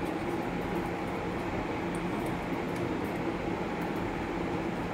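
Steady machine hum with an even rushing noise that does not change.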